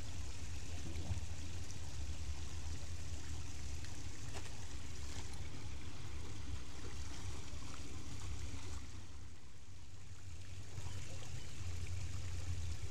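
Shallow rocky creek water running and trickling steadily, with a low rumble underneath; it dips slightly quieter for a couple of seconds near the end.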